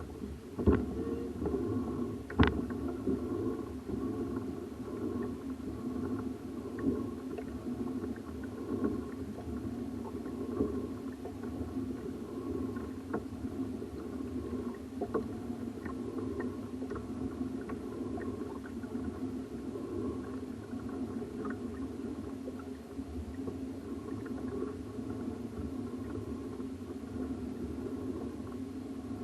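Kayak under way on the lake: a steady low hum with water noise, and a couple of sharp knocks in the first few seconds.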